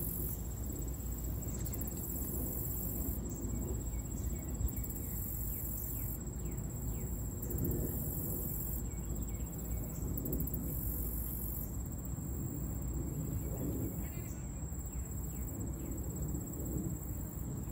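Insects trilling high in pulsing spells that come and go every second or two, over a steady low rumble, with a few short chirps.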